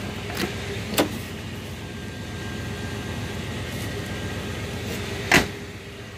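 Rear door of a 1990 Chevrolet Caprice Brougham opened and shut: the outside handle and latch click twice in the first second as it opens, then the door closes with one loud slam about five seconds in, over a steady low hum.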